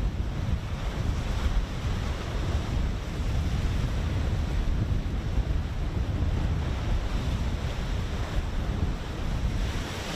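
Wind blowing across the microphone at sea, a steady low rumble with a fainter hiss of waves over it.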